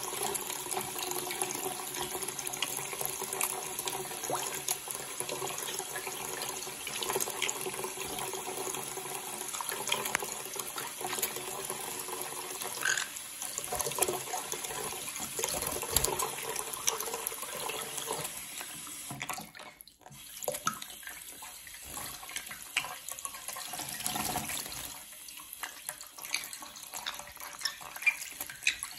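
A thin stream of tap water runs into a small stainless-steel bowl in a bathroom sink, with irregular splashes as a green-cheeked conure bathes in it. The water sound drops away briefly about two-thirds of the way through and is quieter and patchier after that.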